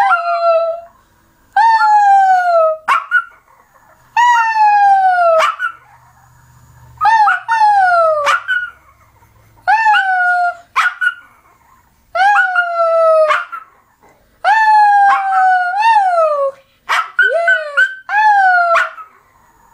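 A pet dog howling in a series of about nine loud, wailing cries, each about a second long and sliding down in pitch, with short pauses between them.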